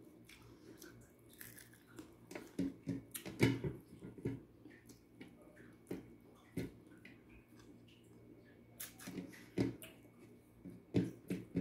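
Close-up eating sounds: irregular chewing of a mouthful of fried rice and dried salted fish, with short clicks and small crunches that come and go.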